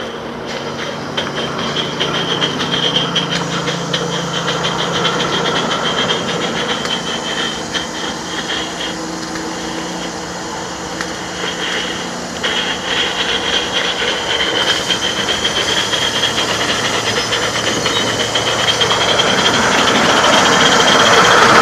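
Small coal-fired live-steam garden locomotive (16mm scale) running along its track with a quick, even beat of exhaust chuffs over a steady hiss, growing louder near the end.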